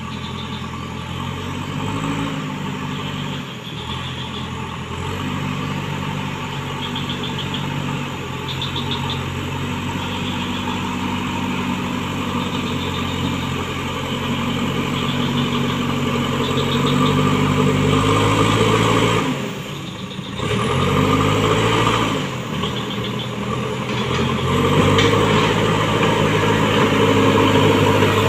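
JCB backhoe loader's diesel engine working as the front bucket pushes soil, its pitch rising and falling with the throttle. About two-thirds through it drops briefly and revs back up, and it grows louder as the machine comes closer.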